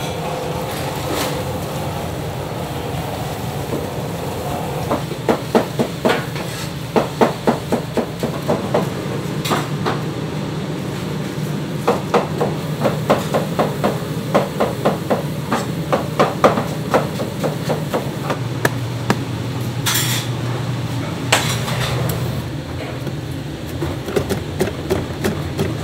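Gloved hands tossing and mixing a pile of shredded cabbage, onion and carrot in a plastic basket, giving runs of quick rustling clicks and knocks, over a steady kitchen machine hum. Near the end a potato turns on a spiral slicer.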